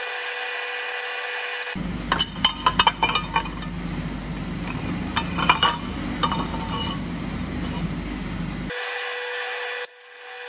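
Metal clinks and knocks as a cylinder liner and hand tools are handled on a bare diesel engine block, in clusters over steady workshop noise.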